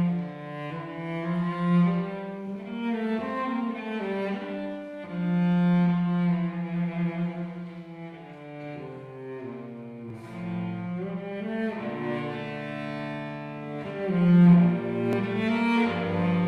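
Cello bowed in long held notes that move slowly from one pitch to the next, swelling loudest about fourteen seconds in.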